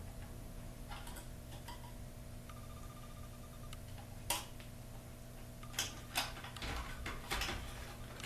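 Wire connectors being handled and pushed onto a garage door opener's logic board: scattered small clicks and plastic taps, the sharpest about four seconds in and a cluster near the end, over a steady low hum.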